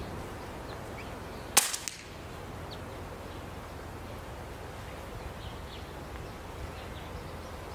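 A single shot from a Daystate Alpha Wolf .22 pre-charged pneumatic air rifle: one sharp, short crack about one and a half seconds in, followed by a fainter knock about a third of a second later.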